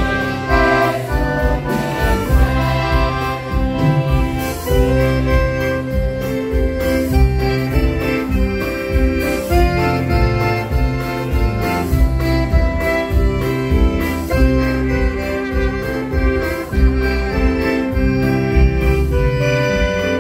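Women's choir singing a hymn in unison, backed by a live band with organ-like keyboard, bass and a steady beat.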